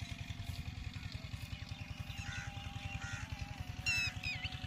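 A small engine running steadily with a fast, even low beat. A few short bird chirps ring out over it, the loudest near the end.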